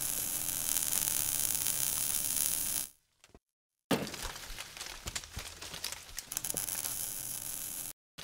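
Sound effects for an animated logo sting. A steady hiss runs for about three seconds and stops. After a short gap a sudden hit comes, followed by about four seconds of crackling with scattered clicks, which then cuts off.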